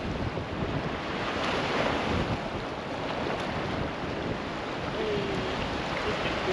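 Small ocean waves washing and breaking over rocks at the shoreline, with wind buffeting the microphone; a steady wash without clear breaks.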